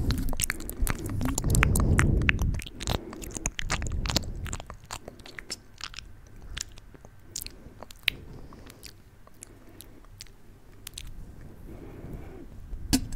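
Close-miked wet mouth sounds: quick lip smacks and tongue clicks, dense for the first few seconds, then sparser and quieter. A low rumble comes about two seconds in.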